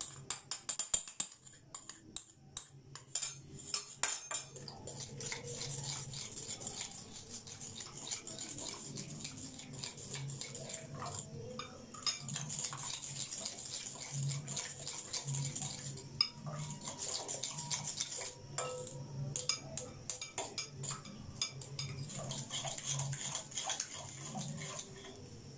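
A spoon stirring custard powder into milk in a glass bowl, clinking rapidly against the glass.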